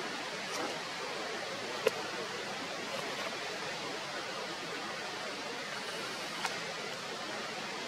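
Steady outdoor background hiss with no distinct source, broken by a few short sharp clicks: the sharpest about two seconds in, another near the end.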